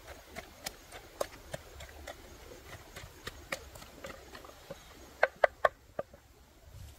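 Wooden pestle pounding a red paste in a wooden mortar: a run of uneven wooden knocks, about two a second, with three loud strikes in quick succession about five seconds in.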